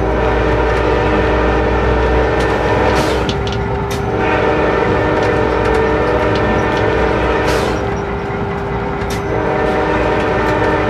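CSX locomotive horn sounding for a grade crossing, heard from inside the cab: long held blasts broken by short pauses, over the rumble of the locomotive and rails, with scattered clicks.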